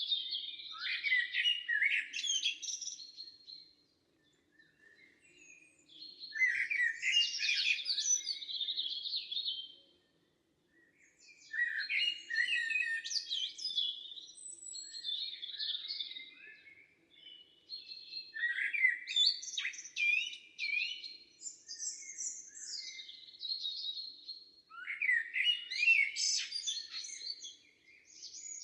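Songbirds singing: fast, complex warbled phrases of a few seconds each, separated by short pauses.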